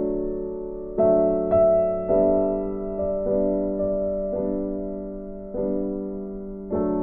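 Background music: slow, calm piano, with notes and chords struck every second or so and left to ring out and fade.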